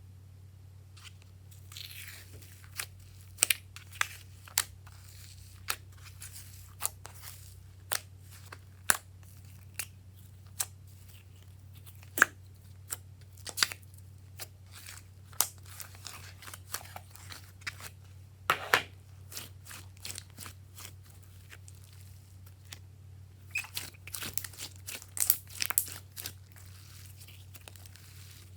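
Glossy slime being squeezed, stretched and pressed by hand, giving irregular sharp clicks, pops and crackles, with thicker clusters near the middle and towards the end.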